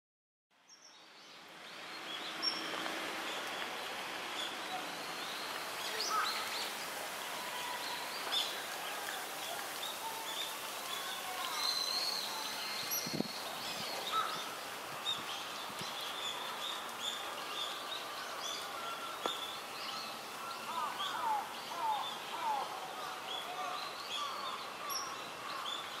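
Many small wild birds chirping and calling over a steady outdoor hiss, fading in at the start, with a run of short falling chirps in the later part and one sharp click about halfway through.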